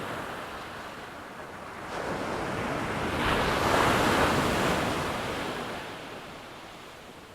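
Ocean surf: a wave breaking and washing in, a rush that swells about two seconds in, peaks around four seconds and then fades away.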